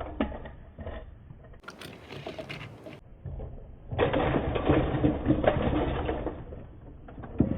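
Remote control car's electric motor and gears whirring in bursts as it is driven. It runs quieter in the first half and louder for a couple of seconds past the middle.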